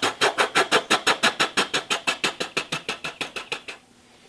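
A person making a vocal sound effect with the mouth: a fast, even run of short noisy clicks, about eight a second, that gets quieter and stops near the end. The imitation was guessed as a sprinkler, which was wrong.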